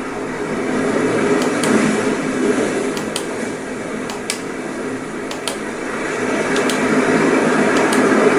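Steady rushing static from the alarm clock's speaker, with several short sharp clicks scattered through it.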